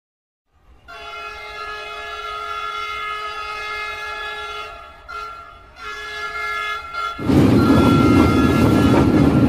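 Train horn sounding one long, steady blast, dipping briefly twice about five seconds in. About seven seconds in it gives way to the louder rumble of the moving train running on the track, heard from inside the coach.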